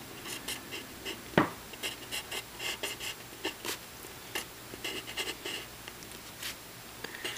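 Pencil scratching on paper in short strokes while lettering a word, with one sharp knock about a second and a half in.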